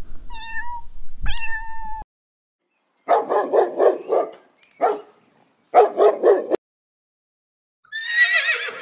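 A cat meows twice, the second meow rising and then held. A dog follows with quick runs of short barks. Near the end a horse whinnies in a falling call.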